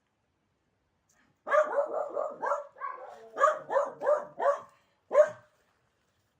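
A small dog barking: a quick run of high yapping barks starting about a second and a half in, then one last bark a little later.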